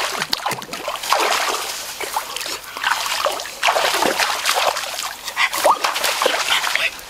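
Water splashing and sloshing in a shallow muddy stream as a person wades and snatches at the water with his hands. A few short rising squeaky calls break through the splashing.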